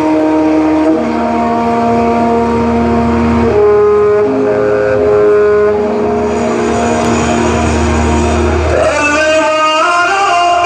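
Music over loudspeakers: long held synthesizer-like notes that change pitch every second or two over a steady low rumble, with a singing voice coming in near the end.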